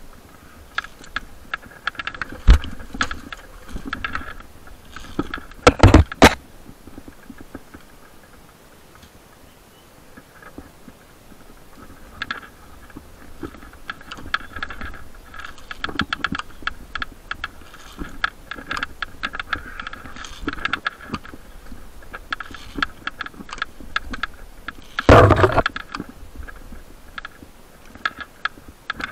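Metal climbing gear and rope clinking and scraping in many small clicks and rattles, with three louder knocks: a couple of seconds in, about six seconds in, and near the end.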